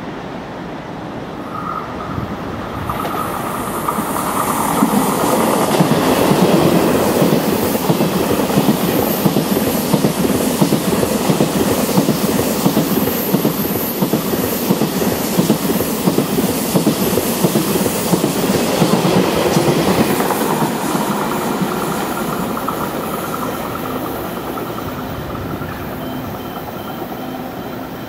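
KTX high-speed train running past on the approach to a station: the noise builds, is at its loudest for about fifteen seconds of rapid wheel clatter on the rails, then fades as the train draws away. A steady high whine is heard as it approaches and again as it recedes.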